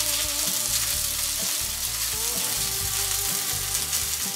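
Vegetable rice frying and sizzling in a grill pan over a charcoal fire, with a steady dense crackle, stirred with a wooden spatula.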